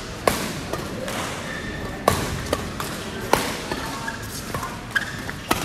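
Badminton rally: rackets hitting the shuttlecock, about half a dozen sharp smacks at uneven intervals.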